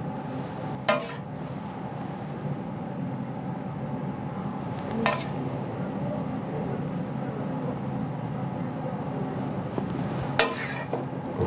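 A metal spoon clinking three times against a stainless saucepan and platter, a few seconds apart, as sauce is spooned over pieces of guinea fowl, over a steady low hum.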